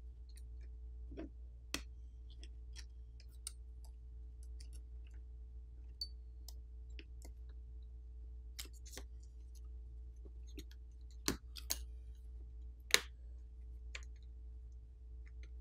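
Scattered small clicks and taps of a plastic pry pick working around a smartphone's main board and metal frame, with a few sharper clicks in the second half, over a faint steady low hum.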